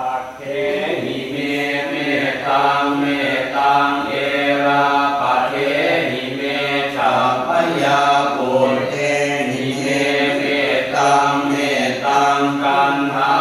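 Buddhist chanting in Pali, a steady, sing-song recitation that runs in phrases with short breaks between them.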